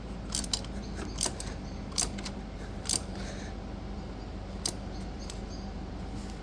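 Metal hand tools, a socket and ratchet, clinking as they are handled: about five short sharp clicks, roughly a second apart through the first three seconds, then one more near the five-second mark, over a faint steady hum.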